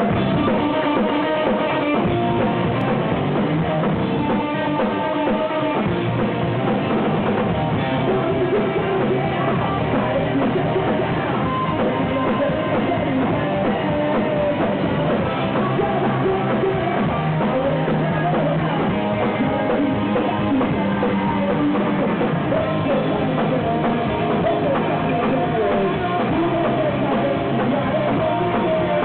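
Rock band playing live: electric guitar and drum kit, with a man singing into the microphone.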